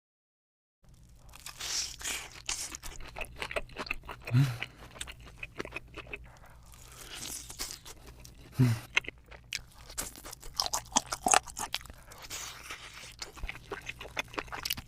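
Close-miked eating of spicy chicken: irregular crunching and wet chewing, starting about a second in. Two short low sounds stand out, about four seconds apart.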